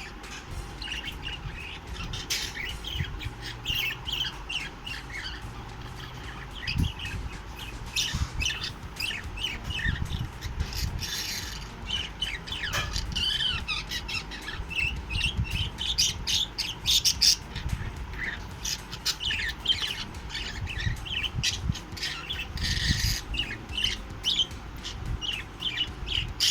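Pet budgerigars chattering: many quick chirps and squawks in rapid, overlapping bursts.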